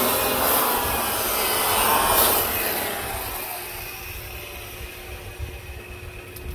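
Electric polisher whirring against a plastic headlight lens, its pitch wavering under hand pressure, then falling away after about two and a half seconds as it is shut off and spins down.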